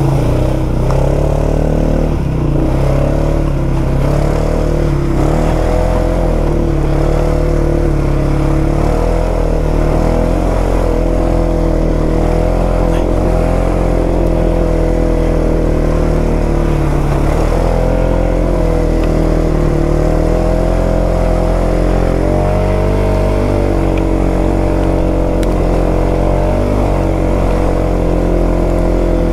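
2021 Polaris 570's single-cylinder engine running steadily under load, its pitch rising and falling a little with the throttle.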